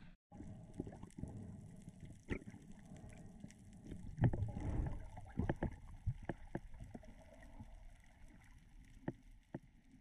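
Muffled water movement heard through a waterproof camera housing: a low rumble with scattered knocks and clicks, heaviest about four to five seconds in.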